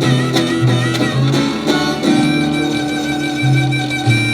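Live band playing an instrumental passage of a country-style song, with fiddle over guitar.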